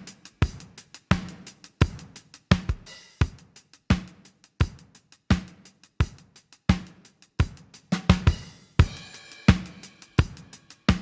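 Drum kit recording playing a steady groove through the bx_console AMEK 9099 channel-strip plugin: kick, snare, hi-hats and cymbals. Strong hits land evenly about every 0.7 seconds, with lighter hits between them.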